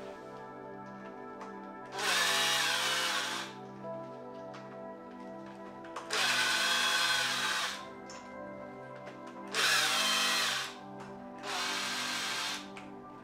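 A handheld power tool motor running in four short bursts of about a second to a second and a half each, spinning up at the start of each burst.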